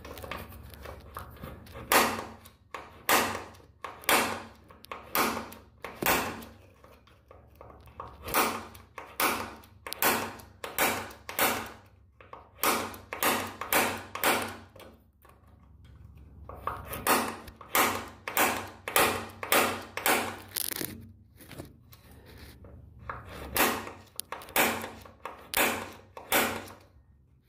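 An automatic punch snapping again and again against the metal of a glass door's bottom pivot, peening the adjustment threads so they can't back down. The sharp metallic clicks come about two a second, each with a short ring, with a couple of brief pauses.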